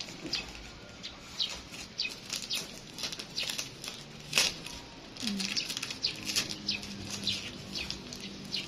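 Packing tape being picked at, peeled and torn off a cardboard carton, in short, irregular crackles and rips.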